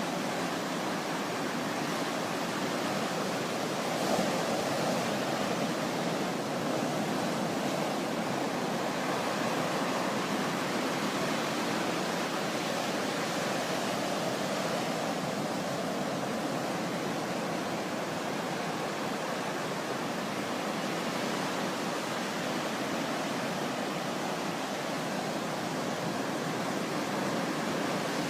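Steady rushing wash of sea surf, an even hiss that swells slightly now and then.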